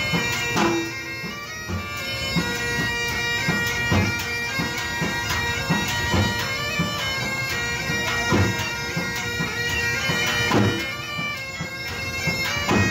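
Music led by a reedy wind instrument over a held drone, with a steady drum beat of about two strokes a second.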